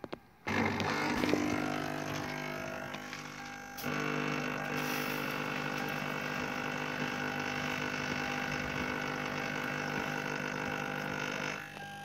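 Spray-extraction vacuum cleaner switched on: its motor starts with a sudden whine about half a second in and runs steadily. The sound grows louder and fuller about four seconds in, then cuts out just before the end.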